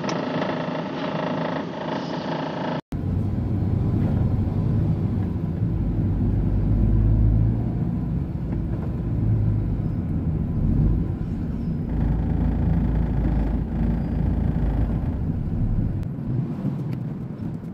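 Heavy truck's diesel engine running with a deep, steady rumble, heard from the cab while creeping in stop-and-go traffic. A brief cut about three seconds in is followed by a heavier rumble.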